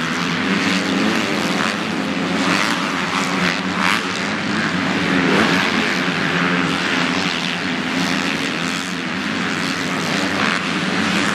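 MX1 motocross bikes racing on the track, their engines revving up and down in a steady loud drone with the pitch rising and falling as riders work the throttle and shift.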